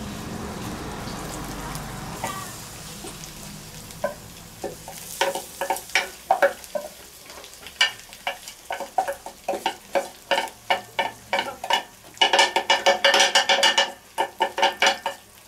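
Diced onions and carrots dropped into a hot stainless steel kettle of frying tomato paste, with a soft sizzle. A wooden spoon then knocks and scrapes against a small metal bowl to clear it, making a run of sharp taps. About twelve seconds in comes a quick, louder rattling scrape.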